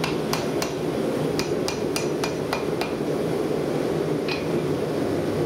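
Light hammer taps on hot steel cable over an anvil, setting a forge weld. There are three quick taps, a short pause, six more at about three a second, then a single tap near the end. A steady rush from the forced-air gas forge burner and its blower runs underneath.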